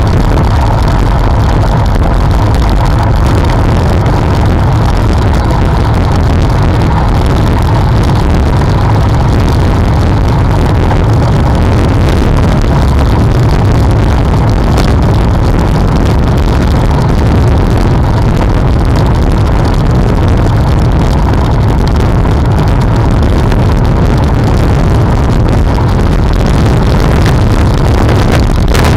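Steady low wind rumble buffeting the microphone of a bicycle-mounted camera while riding along the road.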